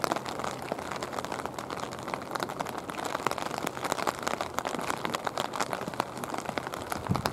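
Rain falling on an umbrella held close over the microphone: a dense, irregular run of sharp drop hits over a steady hiss of rain.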